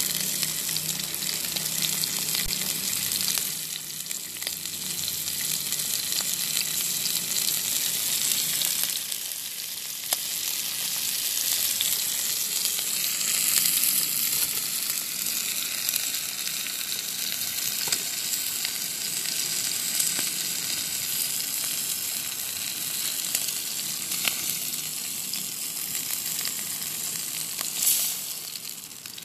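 Slices of beef tongue sizzling on a griddle plate over a wood fire: a steady frying hiss with occasional sharp pops.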